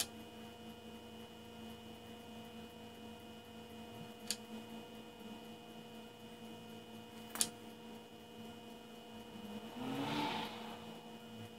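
Steady electric hum of the small motor on a lure-drying turner, running at a constant pitch. Two faint ticks come a few seconds apart, and there is a brief soft rustle near the end.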